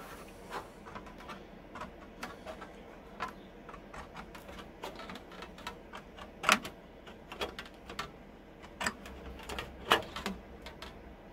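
Hand tin snips cutting thin sheet metal, an irregular run of crisp clicks and snaps as the jaws close bite by bite, with two louder snaps, about halfway through and near the end.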